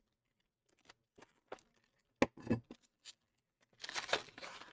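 Foil-lined wrapper of a trading-card fat pack being handled and torn open by hand: scattered crinkles, a sharp crackle about two seconds in, then a longer tearing crackle near the end as the seal gives.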